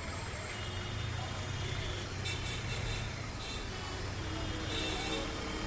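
Steady urban background noise with a low traffic-like rumble.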